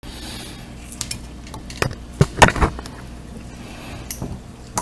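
Handling noise from an accelerator pedal position sensor's housing being picked up and turned in gloved hands on a workbench. A few scattered clinks and knocks are heard, the loudest about two and a half seconds in, over a faint steady low hum.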